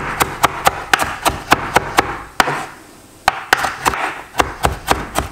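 Kitchen knife chopping fresh parsley on a wooden cutting board: quick, even knife strikes about four a second, with a short pause a little past halfway.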